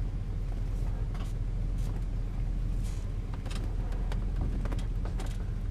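Ford-chassis Class C motorhome engine running at low speed as the rig is inched back and forth to find a level parking spot, a steady low hum with a few scattered light clicks and rattles.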